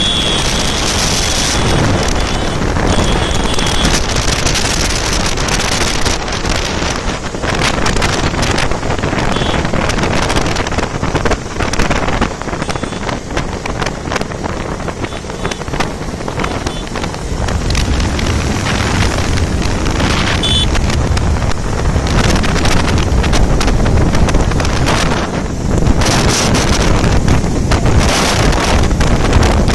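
Heavy wind buffeting on the microphone of a camera on a moving motorcycle, over the motorcycle engines, with stronger low buffeting in the second half.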